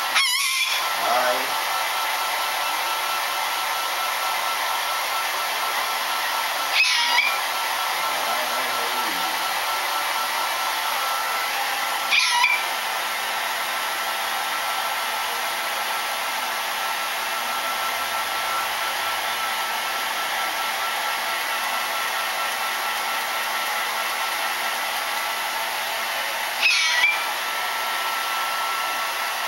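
Hair dryer blowing steadily on a wet pet bird to dry it after its bath. The bird gives four short, sharp calls over the dryer noise.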